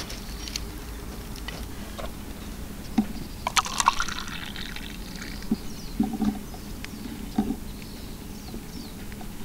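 Hot drip coffee poured from a mug into a paper cup: a short splashing pour about three and a half seconds in. Scattered light clicks and knocks, from cups being handled, fall around it.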